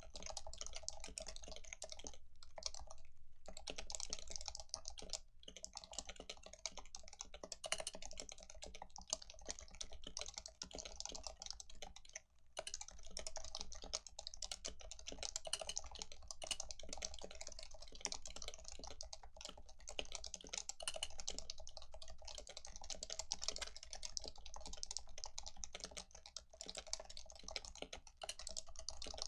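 Continuous fast typing on a Leopold FC660C keyboard with stock Topre 45 g electrostatic capacitive dome switches. It is a dense stream of keystrokes, broken by a few brief pauses early on and near the middle.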